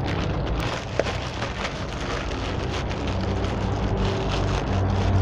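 Plastic courier mailer being torn open and crinkled by hand, a dense crackle of small ticks with a sharper snap about a second in. Underneath runs the low drone of road traffic, with a vehicle engine swelling near the end.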